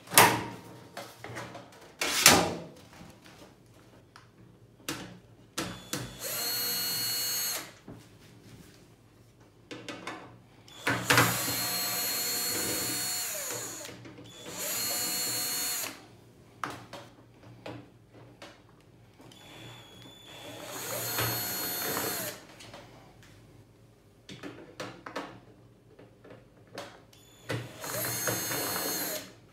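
Cordless electric screwdriver running in five short bursts of one to three seconds, turning screws in a steam oven's sheet-metal casing, the longest run about eleven seconds in. Two sharp knocks near the start.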